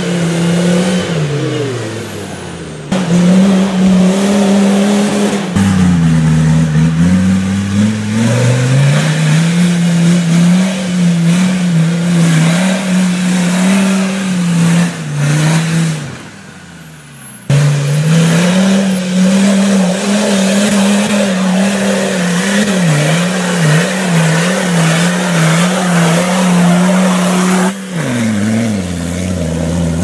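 Land Rover Defender's TD5 five-cylinder turbodiesel, turbo upgraded, revving hard under load on a steep rocky climb. The engine is held high, dipping and rising again and again, with a few sudden breaks in the sound.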